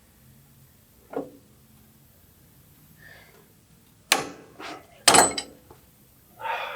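Pipe wrench slipping off a hydraulic cylinder's gland nut and coming apart: a light knock about a second in, then two loud metal clanks about four and five seconds in, the second the loudest, with a brief metallic ring.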